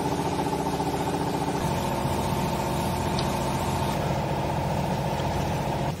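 Hydraulic baler's electric motor and pump running steadily with a buzzing hum, its tone shifting about a second and a half in. It cuts off abruptly near the end.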